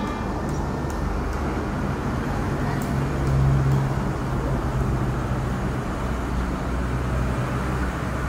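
Diesel-electric locomotive hauling a container freight train as it approaches: a steady low engine drone with wheel and rail noise, loudest about three and a half seconds in.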